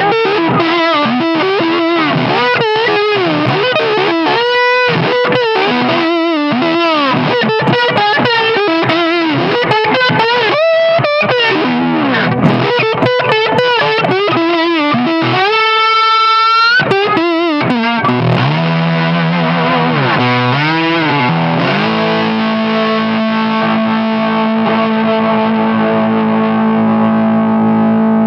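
Electric guitar played with a slide through a Soul Tramp Wraith amplifier: gliding notes and quick slid phrases, a fast rising run about midway, then a chord left ringing for the last several seconds.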